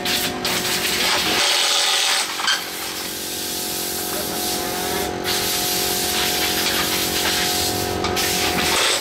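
Tool noise from mechanics working on a car's steering rack and subframe, over a steady hum and hiss that drops out briefly twice.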